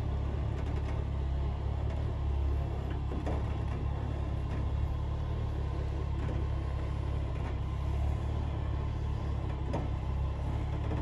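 Hummer H3's engine running at low revs as the SUV crawls slowly over rock ledges: a steady low rumble, with a few faint clicks.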